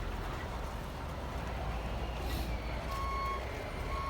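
Reversing alarm of a radio-controlled model vehicle beeping, starting about three seconds in: beeps at one steady pitch, each about half a second long, once a second, over a low rumble.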